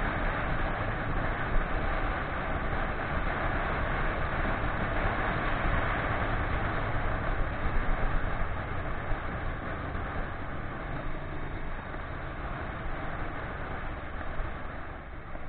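Steady wind and road rush on a motorcycle-mounted camera riding at speed, with the motorcycle's engine mixed in underneath; it eases slightly over the last few seconds.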